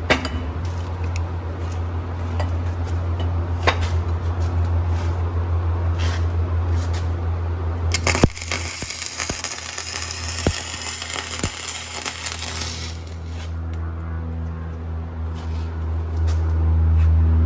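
Flux-core arc welding: the wire arc crackling and spattering in a dense run of small sharp clicks, over a steady low hum. About 8 seconds in a sharp crack comes, and the arc turns brighter and hissier for about five seconds before it settles back to crackling.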